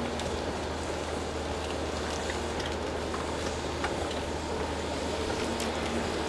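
Diesel engine of a custom Cat 330 steep-slope excavator running steadily at working speed, a constant low hum with a few held tones. Scattered light clicks and cracks sound over it.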